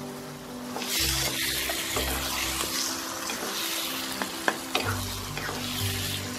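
A wooden spatula stirring wet taro greens in a non-stick wok over high heat: the greens sizzle and hiss, louder from about a second in, as their water cooks off. A few sharp clicks of the spatula against the pan come about four and a half seconds in.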